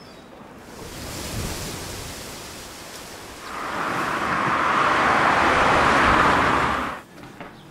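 An outdoor rushing noise with no pitch. It swells about a second in, grows much louder about three and a half seconds in, and cuts off sharply about seven seconds in.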